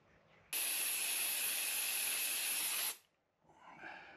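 Can of compressed air (air duster) blowing one steady burst of about two and a half seconds at a camera to clear dust. It starts about half a second in and cuts off suddenly.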